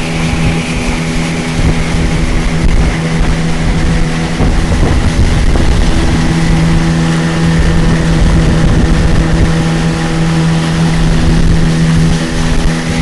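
Motorboat engine running at a steady speed, its drone held constant over a loud rush of noise.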